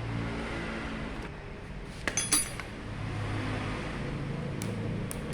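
A short cluster of metallic clinks about two seconds in, from tools and metal parts handled while taking apart a diesel injection pump, over a steady low hum.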